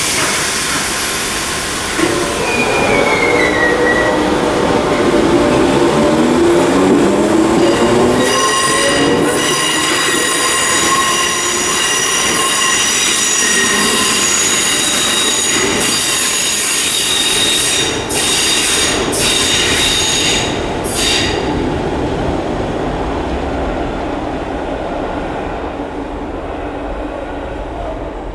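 Merseyrail Class 508 electric multiple unit pulling out of an underground platform: a whine rises in pitch as it gathers speed, then its wheels squeal in a steady, high-pitched note on the curved track for over ten seconds before the sound fades as it goes into the tunnel.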